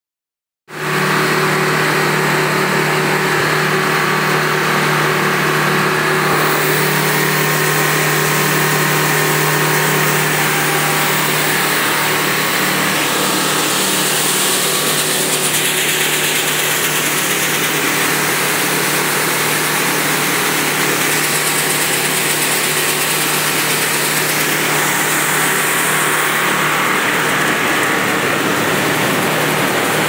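A C.B. Hay bean harvester threshing black-eyed beans behind a tractor: a steady, loud mechanical din with a low engine hum under a dense rushing hiss of the threshing and cleaning works. The low hum fades somewhat near the end.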